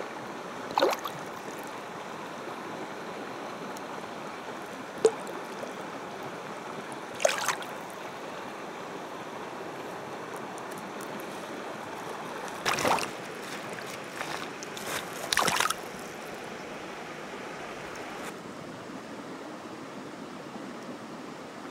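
Steady sound of running water at a shallow muddy pool, broken by about five short splashes as fish thrash at the surface, the last two close together about two-thirds of the way through.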